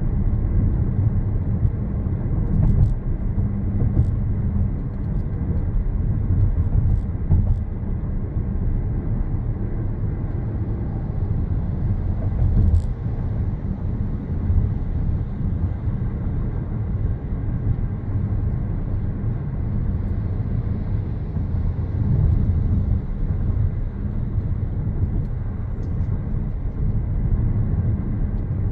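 Car driving on the road: a steady low rumble of road and engine noise, with a few brief clicks scattered through it, the loudest about 13 seconds in.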